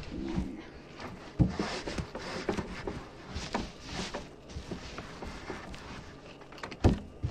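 Clothes iron being worked quickly over a long cloth robe: fabric rustling and the iron sliding over the cloth, with small clicks and a few sharp knocks, the loudest near the end.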